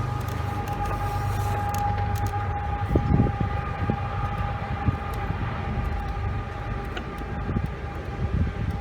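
A steady machine hum with a thin, even whine runs throughout, from some motor in the surroundings. Over it come a few light knocks and clatters of plastic vacuum parts being handled, the loudest about three seconds in.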